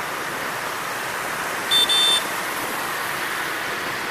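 Steady motorbike and road traffic noise heard from a rider moving through the traffic. About two seconds in, a horn gives two short high-pitched beeps in quick succession.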